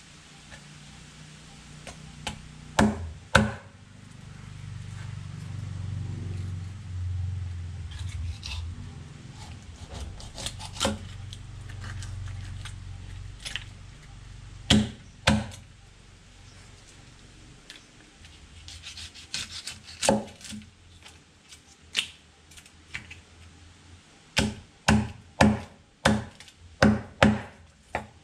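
Heavy kitchen knife chopping through a tilapia and striking a wooden chopping block: scattered sharp knocks, then a quick run of chops about two a second near the end. A low rumble runs through the middle.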